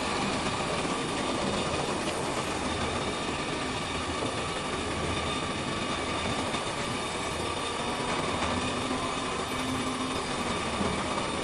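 Fully automatic hemming sewing machine running steadily: a continuous mechanical clatter with a constant whine.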